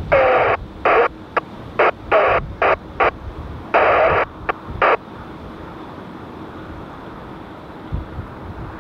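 Air traffic control radio speech from an airband scanner: choppy, tinny transmission bursts that cut in and out for about the first five seconds, then stop. Afterwards only a steady low rumble of wind remains.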